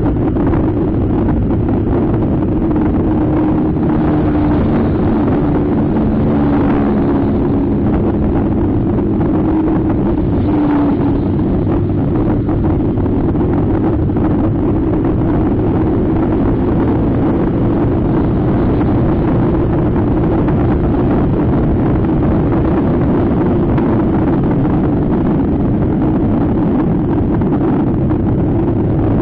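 Scooter engine running at a steady cruise, with wind rushing over the microphone.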